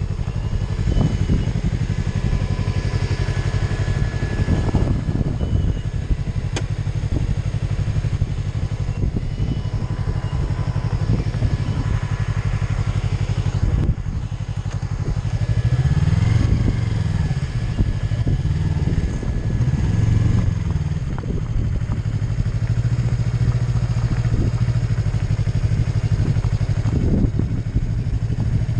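Yamaha MT-03 motorcycle with an Arrow Pro-Race exhaust running at low speed in low revs, with the revs rising and falling a few times about halfway through, and a light clatter over it.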